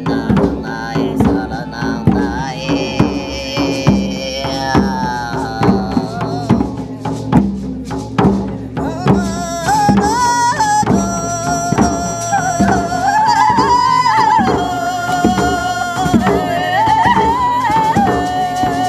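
Shamanic frame drum beaten in a steady pulse of about two strokes a second. About halfway through, a high woman's voice joins, singing long held notes that slide between pitches.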